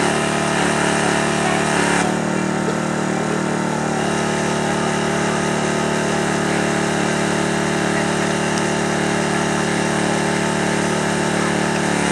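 Engine-driven hydraulic power unit running steadily to power a rescue tool as it closes on a steel pipe, its sound shifting slightly about two seconds in.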